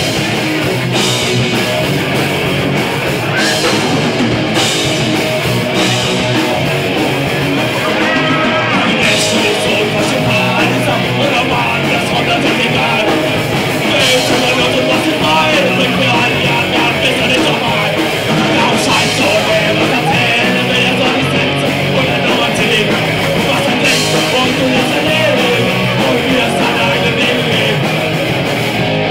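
Live rock band playing loud, with distorted electric guitar and a drum kit, cymbal crashes every few seconds, and the sound filling a small club.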